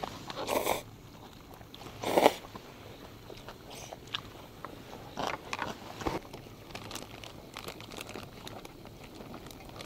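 A person slurping hot shabu-shabu vegetables (bean sprouts and greens) from a bowl and chewing them, with two loud slurps about half a second and two seconds in. Quieter chewing, small clicks and light rustles follow.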